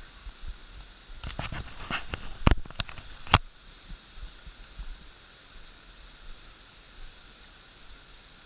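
A steady hiss of rushing water, with a quick cluster of sharp knocks and clicks about a second in, the two loudest near the middle.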